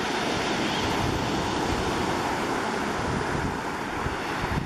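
Ocean surf washing in steadily, with wind buffeting the microphone.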